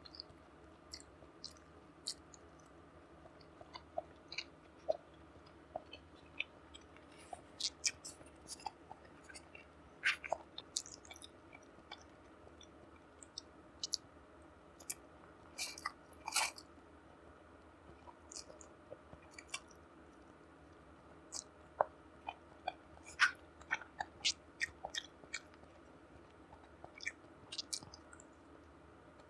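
Close-miked chewing and eating sounds: wet mouth clicks and smacks with irregular crisp crackles, some in quick clusters, over a faint steady hum.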